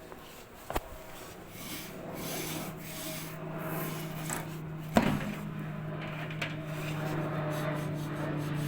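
Clothes dryer running with a rubbing, rasping noise over a steady low hum, the screeching of a worn-out drive motor that needs replacing. Two sharp knocks come about a second in and again about five seconds in.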